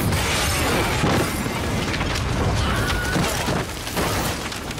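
Film sound effect of a large explosion: a sudden loud blast, then a long spell of dense explosion noise with debris crashing, swelling again about a second in and around three seconds in.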